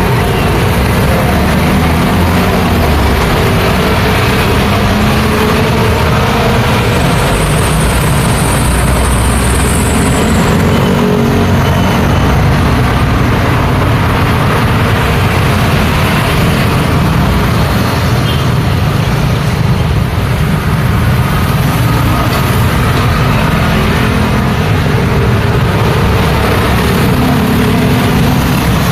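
Busy street traffic: a steady, loud, continuous mix of passing vehicles' engines, with heavy low-pitched engine rumble underneath.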